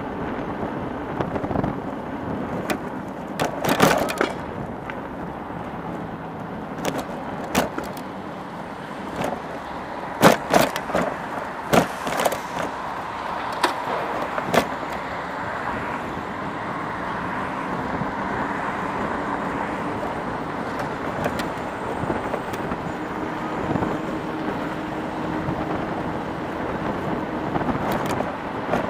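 Steady road and traffic noise heard from a moving e-bike in city streets, with a string of sharp knocks and rattles in the first half.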